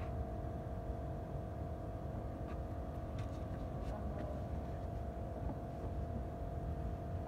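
Steady low mechanical rumble with a constant hum, broken by a few light clicks between about two and four seconds in.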